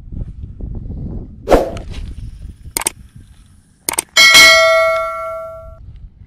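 Subscribe-button animation sound effects: a sharp thump, a few quick mouse clicks, then a notification bell dings once and rings out for about a second and a half. A low wind rumble runs underneath.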